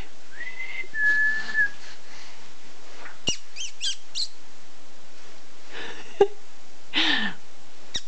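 A pet bird whistling and chirping: two short, steady whistles near the start, a quick run of high chirps a few seconds in, and a lower call falling in pitch near the end.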